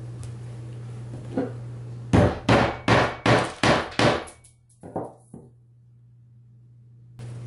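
A run of six sharp, hammer-like knocks at about two a second, followed by two fainter ones.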